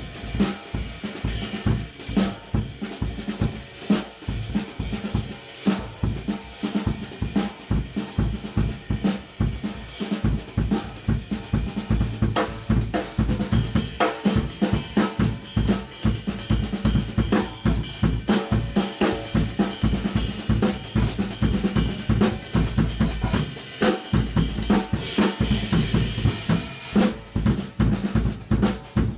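Drum kit played in a continuous groove, with kick and snare under a riveted 20-inch Zildjian Old K Istanbul ride cymbal. It starts suddenly.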